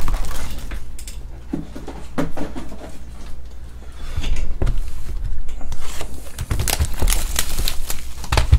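Scattered knocks, taps and rustles of cardboard card boxes being handled and moved on a tabletop, with a louder knock near the end as a box is picked up.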